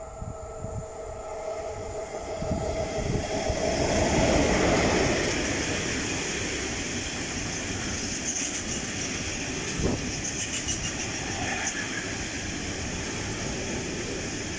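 Freight train passing close on an electrified line. The approach swells to its loudest about four seconds in as the head of the train goes by, then the long rake of open box wagons rolls past with a steady rumble, one sharp knock about ten seconds in and brief high wheel squeal.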